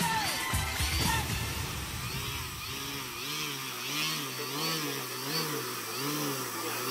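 Small model aircraft engine running at a low throttle setting, its pitch surging up and down in a steady cycle about every 0.7 seconds. The sound fades away near the end.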